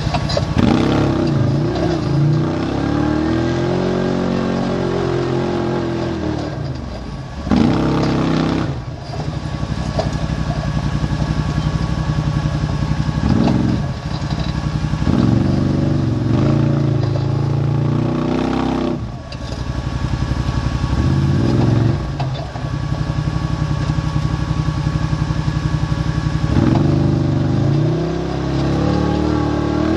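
Arctic Cat Wildcat 1000 UTV's V-twin engine revving up and easing off again and again under load while the machine crawls at walking pace through deep ruts in four-wheel drive, in bursts of a few seconds with brief drops in between.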